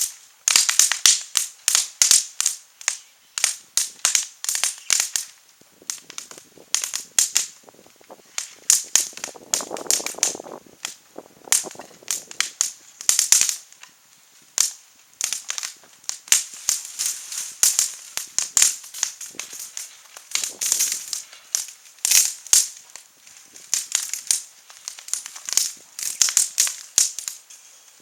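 Wood fire crackling, with many sharp irregular pops.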